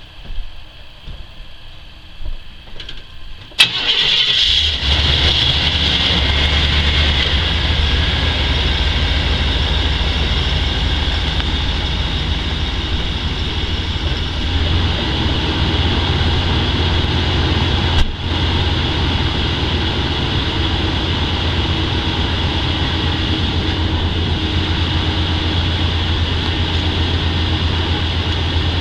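Van engine starting about three and a half seconds in and settling into a steady idle, after a few light knocks; a single click about halfway through.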